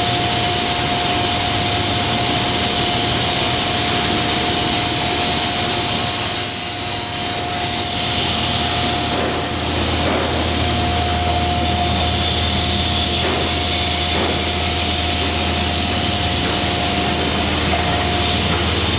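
Lobo CNC panel saw running: a loud, steady machine noise with a constant whine. Its sound shifts about six to eight seconds in, when higher whines come and go, and again about ten seconds in, when the low rumble grows stronger.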